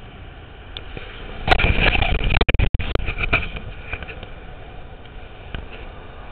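Wind rushing over a handheld camera's microphone while a longboard's urethane wheels roll over asphalt at speed. It is a steady rumble, with a louder, gustier stretch about a second and a half in that drops out briefly twice.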